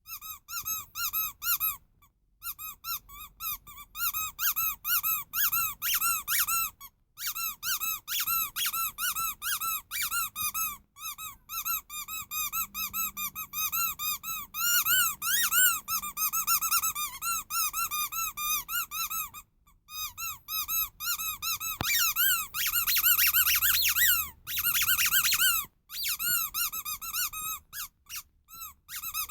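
Rubber sheep squeaky toy squeezed over and over, several squeaks a second, each one rising and falling in pitch, in runs broken by short pauses. A louder, quicker run of squeaks comes in the later part.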